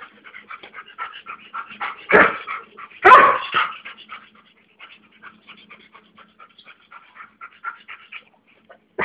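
Doberman dogs vocalizing: a string of short, high cries, with two louder cries about two and three seconds in.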